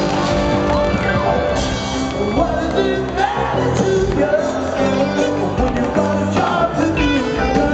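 Live rock band playing loudly with a male lead voice singing over piano and band, heard from the audience in a large arena.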